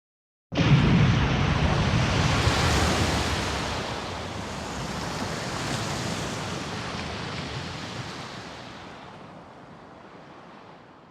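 A dramatic rushing-noise sound effect, like surf or a gust of wind, with a deep rumble underneath. It starts abruptly about half a second in, peaks at once, and fades slowly away over about ten seconds.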